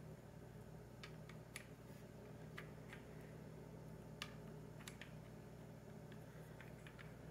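Faint, scattered small clicks and taps as a Holosun 508T red-dot optic is handled and test-fitted against a Sig P320 pistol slide, over a steady low hum; near silence otherwise.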